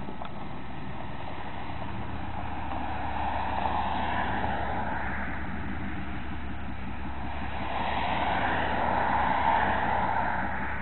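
A straight-piped pickup truck's exhaust: the engine runs with a steady low rumble that swells louder twice, about a third of the way in and again near the end.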